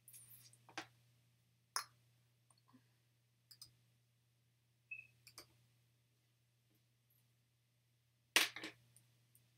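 A few scattered light clicks and taps from small objects being handled, with the loudest cluster near the end. A short faint beep comes about five seconds in, over a faint steady low hum.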